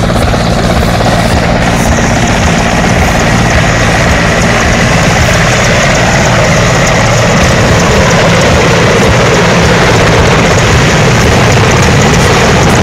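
Mi-17 helicopter's twin TV3-117MT turbine engines and five-blade main rotor running loud and steady as it flies low and close, with a steady high turbine whine over the rotor's rumble; the noise grows a little louder toward the end.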